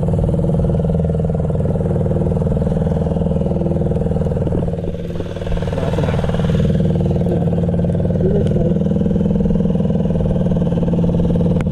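Boat outboard motor running steadily at trolling speed, a loud, even low hum heard close up at the stern.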